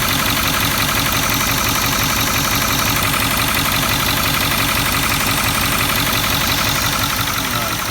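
Ford 6.4L Power Stroke V8 diesel idling steadily with a valve cover off and the rocker arms exposed, giving a fast, even clatter. The owner is trying to diagnose a tapping knock from the valve train.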